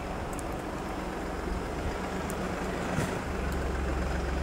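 Low, steady engine hum like a diesel idling, growing stronger about three seconds in.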